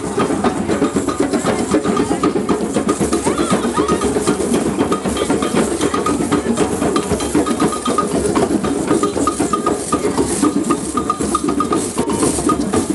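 Drum circle: many drums played together in a fast, dense, steady beat. A short high note repeats over the drumming in the second half.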